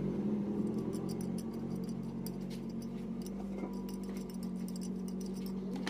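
Honda CRF motorcycle engine idling steadily, with faint light ticking over the hum.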